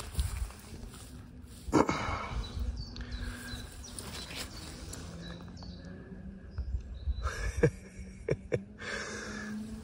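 Outdoor countryside ambience: wind rumbling on the microphone, with faint bird chirps and a few sharp knocks or rustles near the end.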